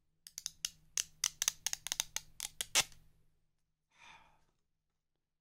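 Clear plastic protective film being peeled off the screen of a Casio LF-20W digital watch, crackling in a quick run of sharp clicks for about three seconds. A brief soft rustle follows about four seconds in.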